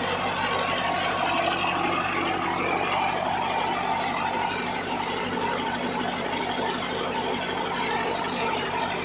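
Old Belarus tractor diesel engine running steadily under load, turning a line shaft and V-belt pulleys that drive a flour mill.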